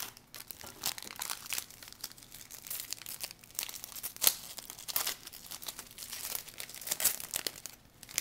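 Trading card pack wrapper crinkling and being torn open by hand: a dense run of crackles with one sharp, louder snap about four seconds in.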